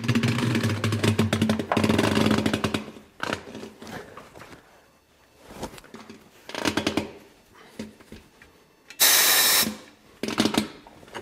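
Tyre changing machine at work demounting a low-profile tyre from an alloy rim: a steady machine hum for the first three seconds, scattered creaks and knocks of the tyre lever and bead against the rim, and a short, loud hiss of compressed air about nine seconds in from the machine's pneumatic controls.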